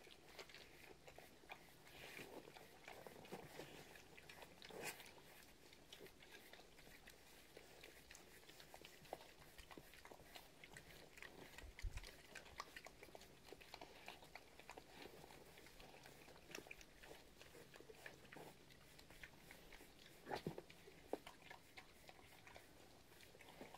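Pigs eating feed from rubber feed pans: faint, irregular chewing and crunching with the odd louder knock.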